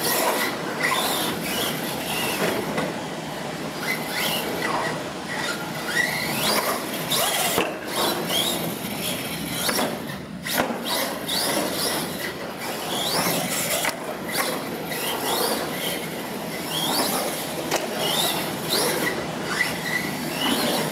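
R/C monster truck driving around on a concrete floor, with many short, high-pitched rising whines as it speeds up and turns.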